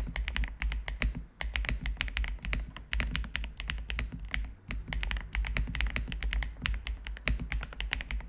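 Redragon K762 Pro mechanical keyboard with Mint Mambo switches being typed on: rapid keystroke clicks in fast bursts with short pauses between them.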